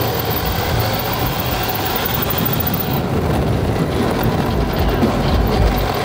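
Onboard sound of a radio-controlled car driving over asphalt: a steady, rough rumble of its motor and tyres, heaviest in the low end.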